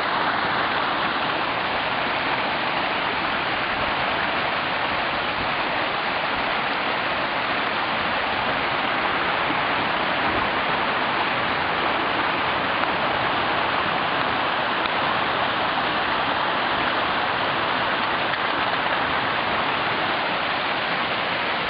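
Floodwater rushing down a street after a hailstorm, a steady, unbroken rush of running water.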